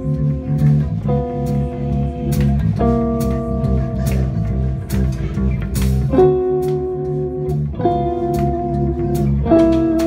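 Live blues band, recorded roughly on a phone: electric guitar holding long notes that change every second or two, over bass guitar and drums with frequent cymbal hits.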